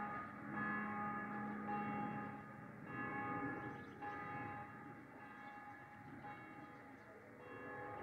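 Church bells ringing, struck about once a second, each stroke ringing on into the next, over a steady low hum.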